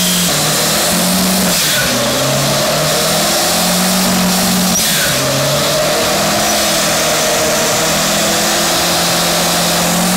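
A small 4x4's engine is held at high revs during a burnout, with the wheels spinning against the pavement. The engine note steps up and down between high-rev levels over a steady hiss.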